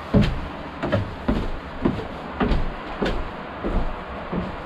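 A steady series of dull, heavy thumps, about three every two seconds, each one dropping into a low boom.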